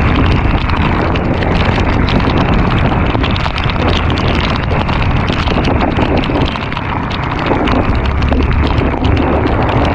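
Wind buffeting the microphone of a camera on a moving scooter in heavy rain: a loud, continuous rush with a low rumble, with the rain and the wet road mixed in.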